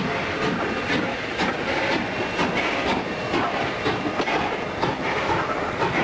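Steam locomotive chuffing in a steady rhythm, about two beats a second.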